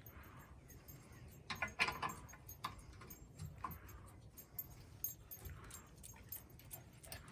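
Scattered light metallic clinks and clicks of lug nuts and hand tools being handled while a car's rear wheel is taken off.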